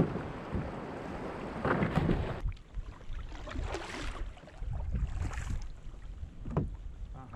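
Rushing river water and wind on the microphone from a kayak in a riffle, which drops off suddenly about two and a half seconds in. Then a kayak paddle dips and splashes twice, and there is a single sharp knock near the end.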